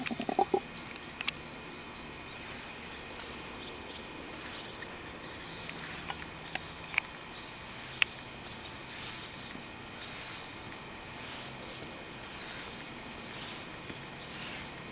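Steady high-pitched drone of a rainforest insect chorus, a little louder from about halfway through, with a few short sharp sounds in the middle.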